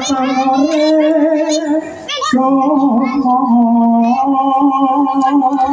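Jaranan dance music: a voice singing a slow, ornamented melody, holding long notes, with a short break about two seconds in.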